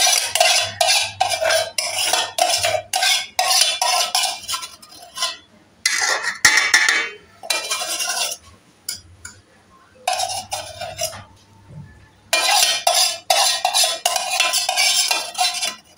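Metal spoon scraping and clinking against an aluminium cooking pot as gravy-coated meat is spooned onto a layer of biryani rice. It comes in three runs of rapid scrapes: a long one at the start, a short one about ten seconds in, and another just after.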